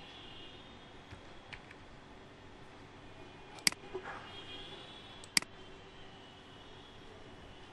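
Computer mouse clicking: two sharp clicks about a second and a half apart, with a couple of fainter clicks earlier, over steady low room hum.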